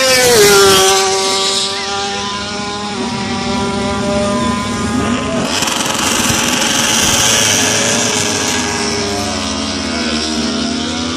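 MotoGP race bikes revving at the practice-start line: the engines rev up and hold a steady high note, then pull away, with the engine note sliding up and down through the gears as they accelerate off.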